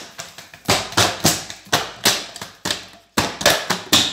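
A plastic PET bottle being punctured with small holes: a quick, irregular run of about a dozen sharp cracks and knocks, roughly three a second.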